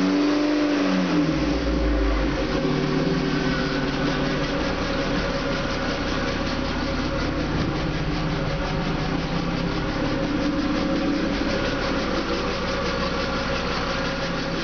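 Opel GT's 2.4-litre four-cylinder engine on MaxxECU fuel injection, just started: it flares up and settles within about two seconds into a steady idle. A rubbing sound runs with it, which the owner puts down to the fan or belt up front.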